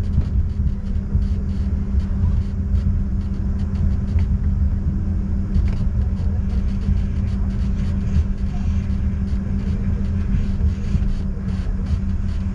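Steady low rumble with a constant hum aboard a parked Embraer E145 airliner.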